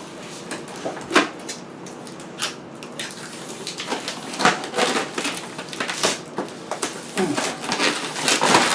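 Protective plastic film being peeled off a stainless steel refrigerator panel, an irregular crackle of short ticks and tearing sounds as old, stubborn film comes away.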